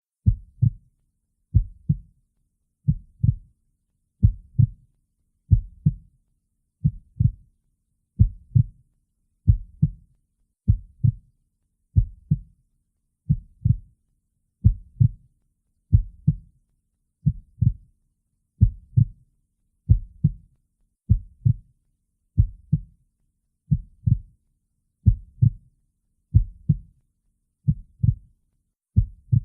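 Slow, steady heartbeat: low paired lub-dub thumps, about one beat every 1.3 seconds, evenly spaced with silence between.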